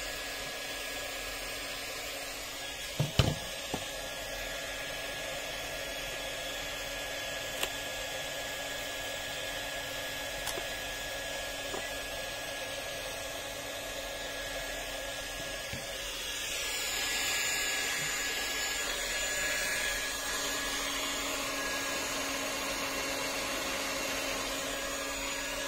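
A steady whir runs throughout, with a few sharp clicks about three seconds in and another near eight seconds. It grows a little louder and brighter around the middle.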